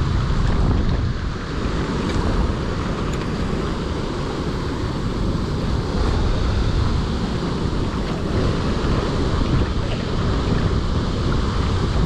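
Strong wind buffeting the microphone in a steady low rumble, over choppy water splashing against a rocky shore.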